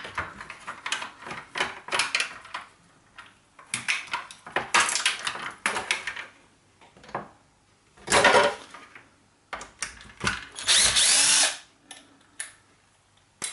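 Cordless power screwdriver running in two short bursts of about a second each, roughly halfway and three-quarters through, undoing screws in a power shower's plastic casing. Between the bursts come light clicks and clatter of plastic parts being handled.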